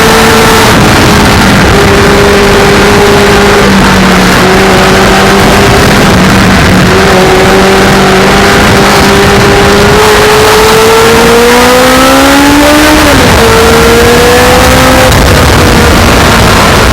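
Motorcycle engine running at road speed, loud, with heavy wind noise on the microphone. Its note holds fairly steady with small pitch steps, climbs for a few seconds past the middle, then drops sharply before settling again.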